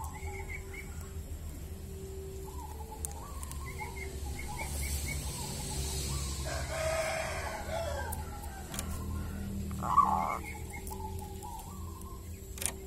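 A rooster crows once in the background about six and a half seconds in, over faint chirping of small birds. A brief, louder sound comes about ten seconds in.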